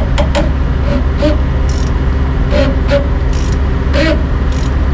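A ratchet and 28 mm socket working the rear fuel filter cap loose, giving scattered short clicks about once or twice a second over a steady low rumble.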